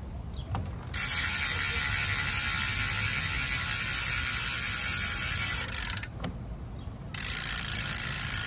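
Hope Pro 2 SS rear hub freewheeling on a coasting rear wheel: a loud, steady, high ratcheting buzz of the pawls. It breaks off for about a second and then starts again. It stays this loud even with a decent amount of grease and oil in the hub.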